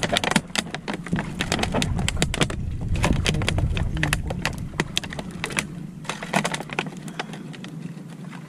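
Rapid, irregular clicks and knocks of a longline and its gear being hauled by hand into a small boat, over a low rumble that drops away about six seconds in.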